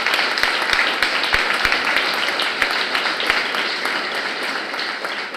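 Audience applauding in a hall, a dense patter of many hands clapping that fades away near the end.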